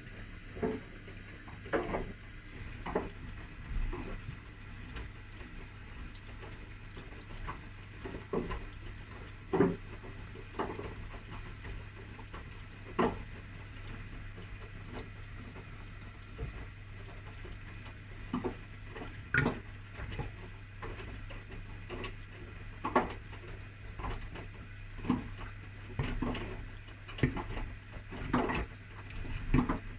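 Whirlpool washing machine in its main wash: laundry and water sloshing in the turning drum, with irregular splashes every second or two over a steady low motor hum.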